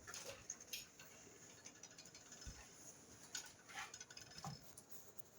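Near silence with faint, scattered small clicks and taps spread irregularly through it.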